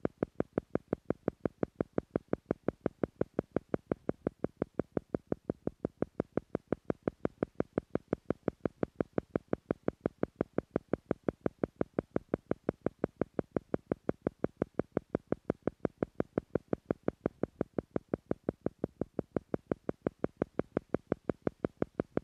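Theta-frequency pulse track: short, evenly spaced pulses at about five beats a second, repeating steadily without a break, meant to slow brainwaves to the theta level.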